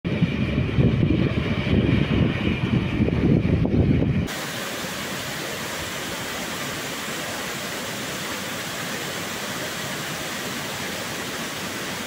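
A loud, uneven low rumble for about the first four seconds, then a sudden cut to the steady, even rush of a waterfall.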